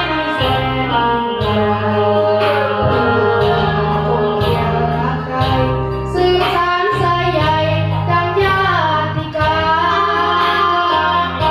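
A child singing into a handheld microphone over backing music with a steady bass beat.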